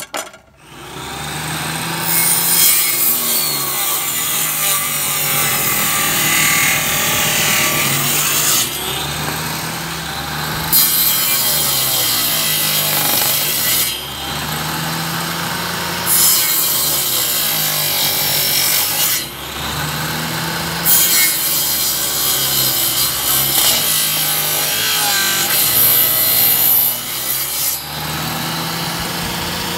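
Table saw spinning up, then cutting a small wooden block in a series of short passes as its corners are trimmed off. The blade runs free for a moment between cuts.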